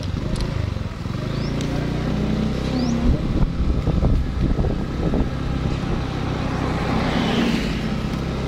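Motor vehicle engine running steadily with road rumble while driving, with a couple of short high chirps about one and three seconds in.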